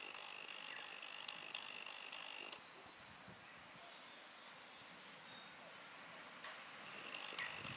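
Faint outdoor ambience with a steady high-pitched trill in the background. About two and a half seconds in it changes to a run of short, higher chirps, and the steady trill returns near the end.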